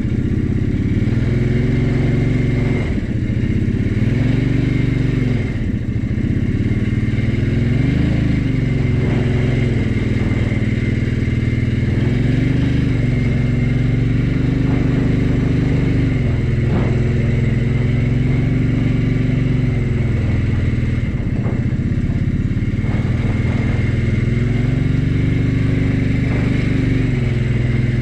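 Engine of a vehicle towing a portable sawmill, running steadily under load, its pitch dipping and rising again several times as the throttle eases and opens. A few short clanks come through now and then.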